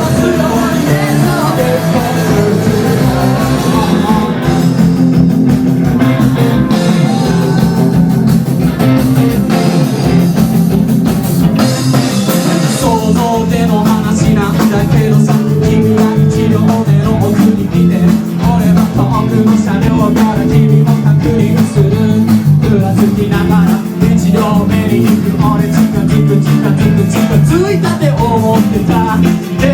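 Rock band playing a song live, loud, with guitar and a singer's voice.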